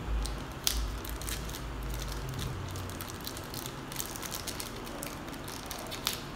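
Thin plastic wrapping crinkling and crackling as a camera battery is unwrapped by hand: a string of small irregular crackles.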